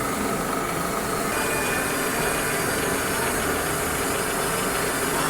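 A machine tool running steadily, a constant mechanical hum with steady tones and hiss. The hiss grows brighter about a second in.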